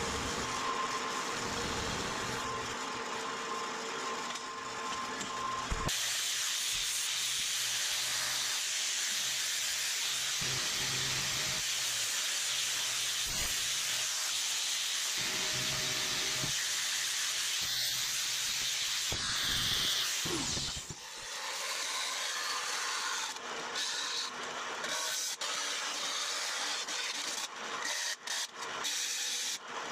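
A band saw running and cutting a small aluminium block, with a steady hum. About six seconds in it gives way to an angle grinder with a sanding disc grinding an aluminium part held in a vise, a strong high hiss. From about twenty seconds on, a band saw cuts through a sheet, and the sound breaks off briefly several times near the end.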